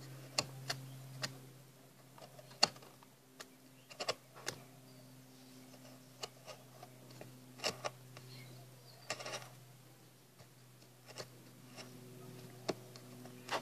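Skew knife working softwood: scattered, irregular light clicks and taps of the blade cutting and snapping off small chips, over a steady low hum.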